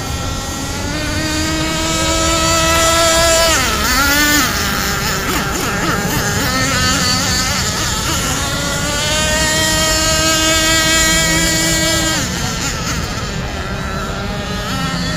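Home-built radio-controlled nitro boat's GO .28 two-stroke glow engine running at speed, a steady high-pitched buzz. Its pitch climbs, drops sharply about four seconds in, climbs and holds again from around nine seconds, then drops once more near twelve seconds.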